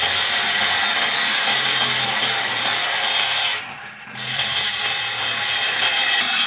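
Steel axe head being worked with an abrasive tool, a steady scraping noise that breaks off briefly a little before four seconds in.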